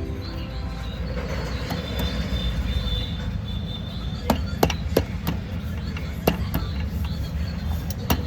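Metal tools knocking and tapping on an auto rickshaw engine during a timing chain repair: a string of sharp, irregular taps starting about four seconds in, over a steady low rumble.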